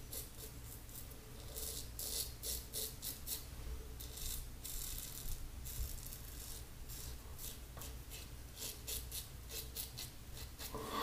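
Double-edge safety razor (Maggard V3 head, Personna 74 blade) scraping through lather and stubble on the neck and jaw in quick short strokes, a crisp rasp repeated several times a second in runs. The blade is well used and feels dull and rough to the shaver.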